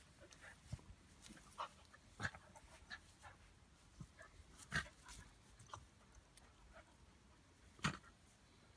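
A Romanian shepherd dog and a small dog play-fighting: faint scuffling with a string of short, sharp dog sounds, the loudest about five and eight seconds in.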